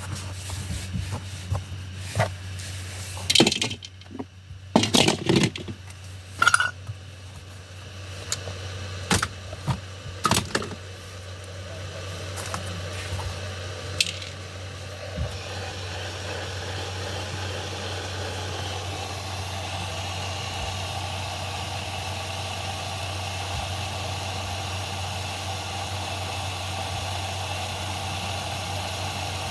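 Coffee machine running after a plug repair, with a steady low hum, handled with a scatter of clicks and knocks over the first ten seconds or so. From about twelve seconds a steady rushing noise builds up and holds.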